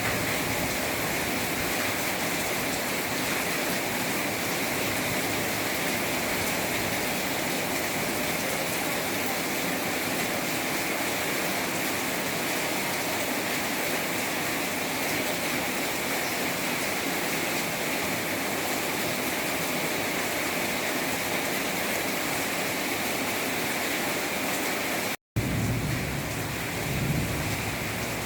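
Heavy rain pouring down steadily as an even hiss. The sound cuts out for a moment about 25 seconds in, then resumes with a bit more low rumble.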